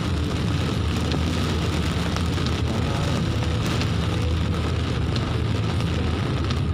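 Rain falling on a car's roof and windshield, heard from inside the moving car, over a steady low rumble of engine and road noise.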